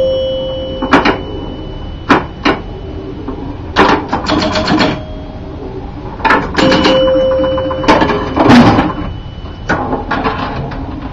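Electromechanical pinball machine clattering: bursts of quick mechanical clicks from its relays and score reels every second or two, some runs of several strokes in a row, with a bell-like chime tone ringing on after some of them.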